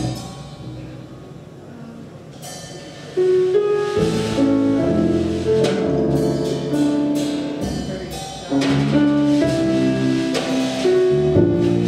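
Live jazz trio of acoustic piano, double bass and drum kit playing. The music is soft for the first few seconds, then comes in much louder with sustained chords about three seconds in, and swells again near nine seconds.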